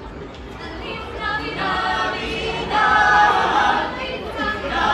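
A small group of carolers singing a cappella, coming in about a second in and growing louder near the middle.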